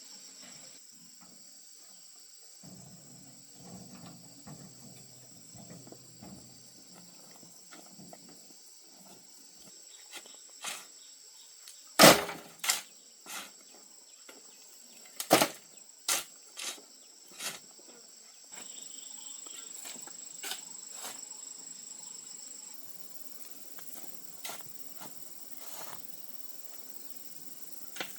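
Insects chirring steadily in a high, even tone, with a run of sharp knocks or taps in the middle, the loudest about twelve seconds in.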